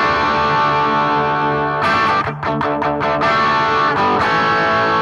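Gibson Les Paul Studio electric guitar with humbucker pickups, played through a BOSS GT-1000 amp modeller's medium-gain crunch channel. Distorted chords ring out, with a new run of strums about two seconds in and another chord change near the end.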